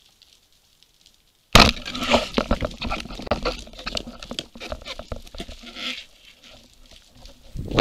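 Matador 76 speargun fired underwater at a grouper in its den: a sudden sharp crack about one and a half seconds in, then several seconds of dense crackling and knocking as the shaft and the speared fish work against the rock. Another loud knock comes near the end.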